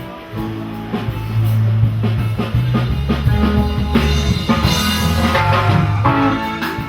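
Live praise music without singing: a drum kit beating out an upbeat rhythm under sustained low bass notes that step from pitch to pitch.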